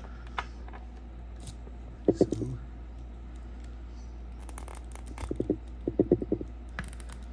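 A plastic action figure and its small accessory handled and fitted together by hand: two short clusters of quick plastic clicks and rattles, one about two seconds in and another around five to six seconds in.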